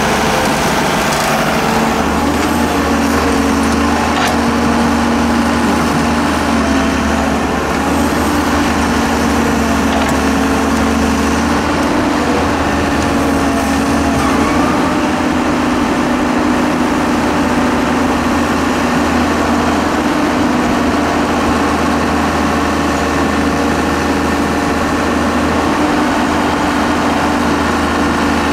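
Hyundai Robex 1300W wheeled excavator's diesel engine running steadily under load while it digs sand and loads it into a dump truck bed.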